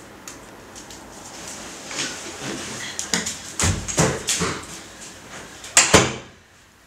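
People moving about a small room: footsteps and shuffling with a series of short knocks and bumps, the loudest pair about six seconds in.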